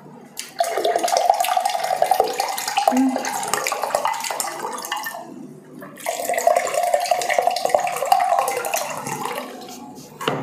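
Juice poured from a plastic pitcher into a drinking glass in two long pours, each about four to five seconds, with a brief pause between them.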